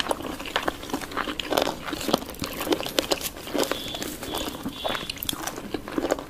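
Close-miked ASMR eating sounds: irregular crunchy bites and chewing of whole chicken.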